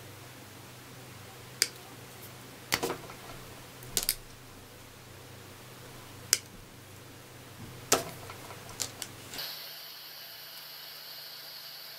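Diagonal side cutters snipping and stripping insulation off thin electrical wire: about half a dozen sharp clicks a second or two apart. A steady high hiss comes in near the end.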